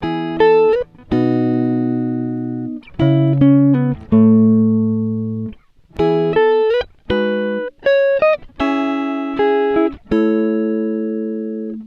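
Background music: a melody of single notes and chords that each start sharply and ring out as they fade, played in short phrases with brief gaps between them.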